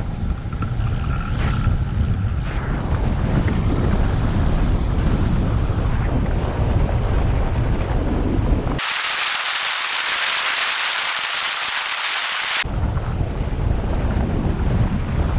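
Wind buffeting the microphone of a hang glider in flight, a steady low rumble. For about four seconds in the middle the rumble cuts out abruptly and is replaced by a bright, steady hiss, then comes back just as suddenly.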